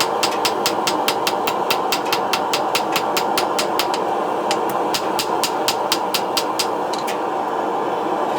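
Rapid hammer blows on hot steel at the anvil, about five a second, thinning out after about four seconds and stopping near the end. Under them runs a steady rushing roar.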